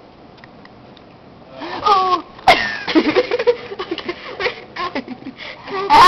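Low hiss for about a second and a half, then a young woman's voice making wordless vocal sounds and laughter in short gliding bursts. There is a sharp click about two and a half seconds in.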